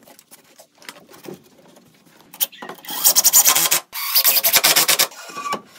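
Makita 40V cordless impact driver sinking a long screw into framing lumber: two bursts of rapid hammering, about a second each, starting about three seconds in, with a short pause between.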